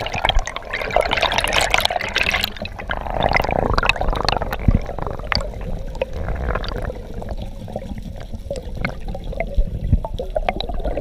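Water heard through a submerged camera: muffled rushing and gurgling with bubbling and many scattered clicks, busiest for the first two seconds or so, over a low rumble.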